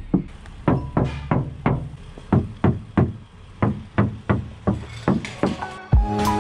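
Car stereo with a powered subwoofer playing music, heard as a dull, bass-heavy beat of about three even thumps a second. Near the end, held musical notes come in over the beat.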